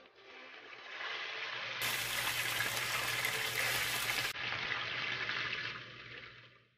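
Food frying in hot oil in a pan: a steady sizzling hiss that swells in and fades out near the end.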